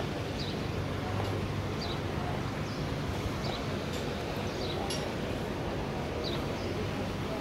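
Steady open-air background noise with short, high bird chirps about once a second, and a low hum over the first two seconds.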